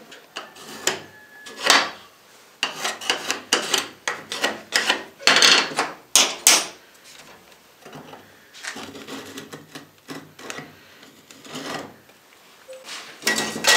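Irregular clattering, clicks and knocks of tools and metal screws being handled on a wooden workbench, busiest a few seconds in and again lighter later on.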